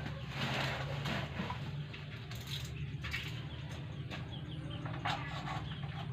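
Bubble-wrap packaging crinkling and rustling as it is handled during the first second or so, then scattered clicks and short bird chirps over a steady low hum.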